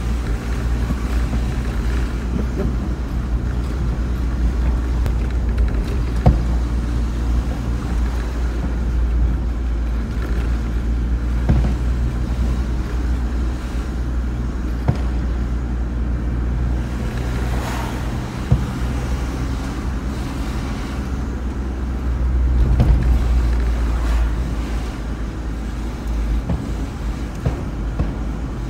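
Steady low road and engine rumble heard inside a moving car's cabin, with a few short, sharp thuds spaced several seconds apart.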